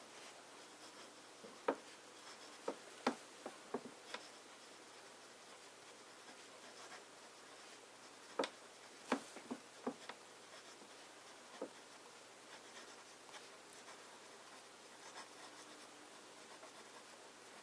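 Medium-nib fountain pen writing cursive on paper: a faint, steady scratch of the nib through the strokes, with a few sharp ticks in two clusters, a couple of seconds in and again around eight to ten seconds in.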